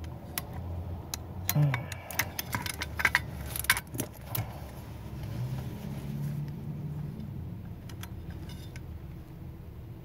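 Small metallic clicks and clinks of snap ring pliers working at the stiff snap ring on a KABA 3001 push-button lock's combination chamber, scattered through the first four seconds or so.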